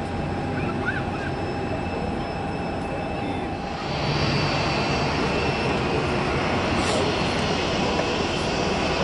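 Jet engines of an Airbus A320-family airliner running as it rolls along the runway: a steady roar with thin whining tones over it. It grows louder and brighter about four seconds in.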